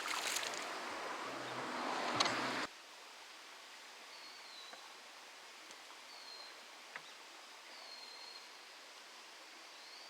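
A few seconds of close rustling noise with sharp clicks, cutting off abruptly to quiet outdoor ambience with a faint high chirp about every two seconds.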